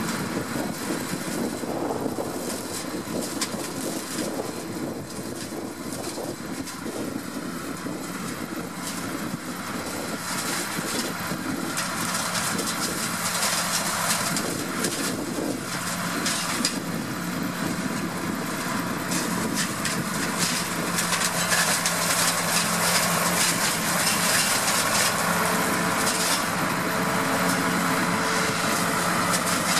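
New Holland Ford 8360 tractor's six-cylinder diesel engine running under load, with the crackle and snap of a tractor-mounted flail hedge cutter chopping hedgerow branches. It grows louder in the second half as the tractor comes closer.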